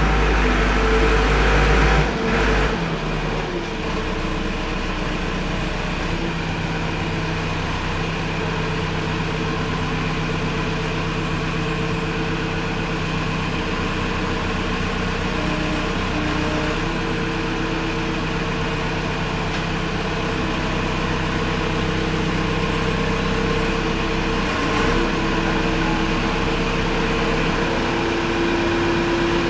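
Diesel engine of a JCB 3CX backhoe running steadily. It has a heavier low rumble for the first couple of seconds, then settles to an even drone.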